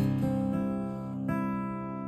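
Acoustic guitar playing: a strummed chord rings out and a fresh chord is strummed about a second and a half in.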